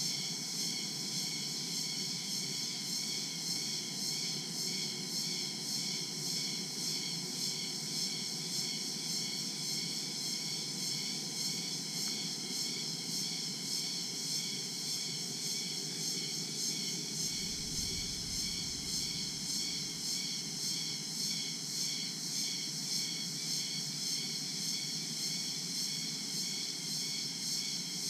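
Daytime tropical jungle insect chorus: crickets trilling in steady, rapidly pulsing high-pitched bands, over a low background hum. A brief low rumble comes in about seventeen seconds in and fades within a few seconds.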